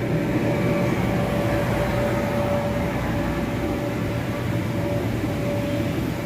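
Steady drone of the air blowers that keep the inflatable bounce houses and slides inflated, with a constant hum running through it.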